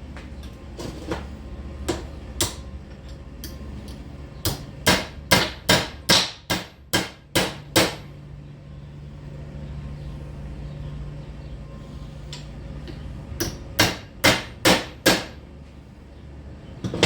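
A hammer striking a steel rod from an old dog kennel to bend it into a door handle: a few single blows, then a quick run of about ten sharp strikes, a pause, and a run of about five more, over a low steady hum.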